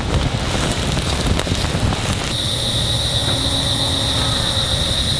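Hot oil sizzling and crackling around a pig leg deep-frying. About two seconds in it cuts off suddenly to outdoor ambience: a steady high-pitched drone with wind rumbling on the microphone.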